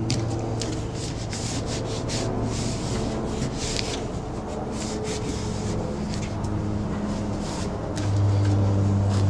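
Hands rubbing and pressing a Resisto self-adhered membrane flashing strip onto the wood sheathing of a window opening: a series of short, irregular scuffing rubs. A steady low hum runs underneath and grows louder about eight seconds in.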